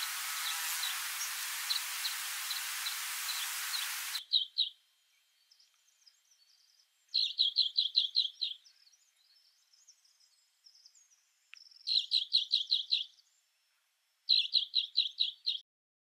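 A songbird singing three short phrases, each a quick run of about six to eight repeated high notes, with a few faint chirps in between. Before that there is about four seconds of steady hiss with faint ticking, which cuts off abruptly.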